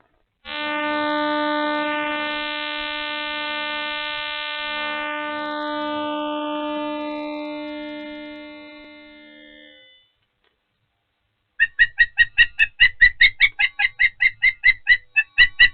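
A steady hum at one fixed pitch, rich in overtones, lasting about nine seconds and then fading out; the source of this weird hum is unknown. About two seconds later comes a rapid run of sharp, high chirps, about five a second, from an osprey calling at the nest.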